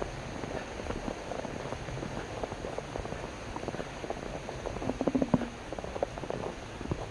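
Footsteps crunching and squeaking in packed snow, with a louder stretch of crunching about five seconds in.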